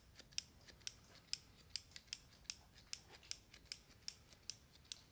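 Small scissors snipping a clump of live sphagnum moss into small pieces, a steady run of short snips about two to three a second.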